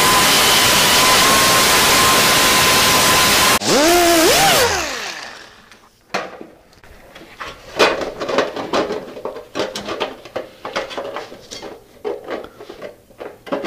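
Small air-powered disc grinder grinding the edge of a steel patch piece down to its marked line, a loud steady hissing whine; it lets off for a moment, runs again, then the whine falls in pitch as it spins down about five seconds in. After that come light clicks and scrapes of the thin steel piece being set against the steel dash panel.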